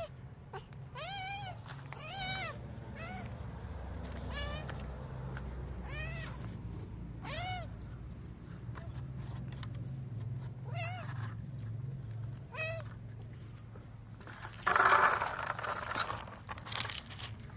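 Stray cats meowing for food, about eight short meows that each rise and fall in pitch, spaced a second or more apart. About fifteen seconds in comes a louder burst of rustling noise lasting about a second.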